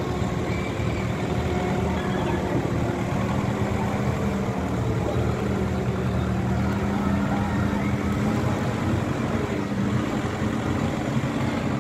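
Construction machinery such as diggers running steadily, a continuous low engine drone.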